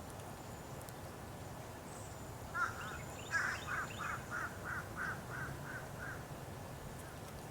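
A bird calling outside: one note, then a run of about nine repeated notes, roughly three a second, growing fainter toward the end.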